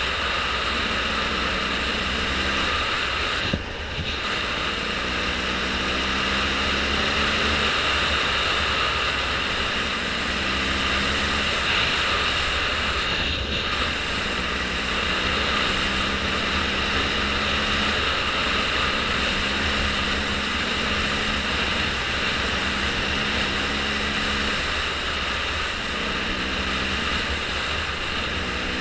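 An engine running steadily under a constant loud rush of noise, its pitch shifting slightly every few seconds.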